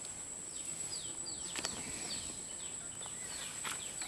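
A bird calling in a string of short chirps that fall in pitch, over a steady high-pitched insect drone, with a couple of faint clicks.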